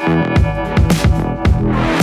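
Background music: electronic music with guitar over a steady beat.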